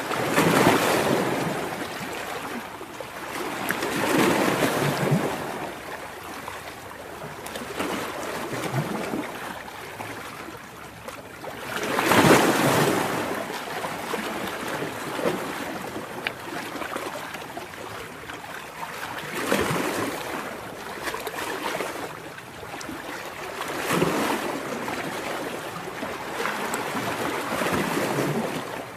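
Ocean surf: waves rushing and washing up on the shore in slow swells, one every few seconds, the biggest about twelve seconds in.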